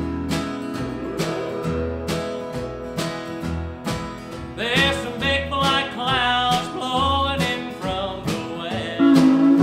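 Country band playing a song intro: acoustic guitar strumming over upright bass notes and a steady beat, with pedal steel guitar sliding into notes. About halfway through, the pedal steel takes a bending lead melody, and a voice starts singing near the end.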